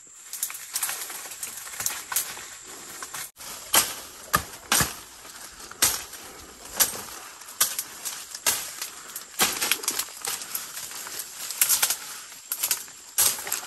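Footsteps crunching through dry leaf litter and tangled undergrowth, with twigs and branches cracking and brushing in irregular snaps, about one or two a second.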